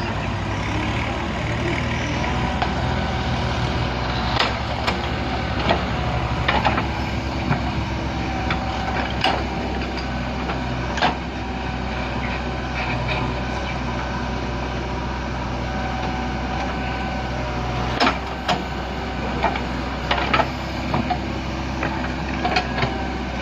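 A heavy diesel engine of a JCB backhoe loader or tractor running steadily, with sharp metallic knocks and clanks now and then from the working machinery.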